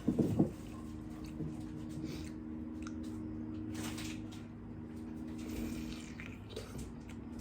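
A short, loud low bump right at the start, then faint scattered clicks and crunches of people eating, over a steady low electrical hum.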